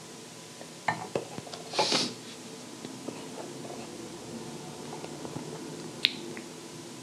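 A stemmed beer glass is set down on a wooden tabletop, giving a couple of light knocks about a second in. A brief breathy sound follows just after, and one more sharp click comes near the end, over a faint steady room hum.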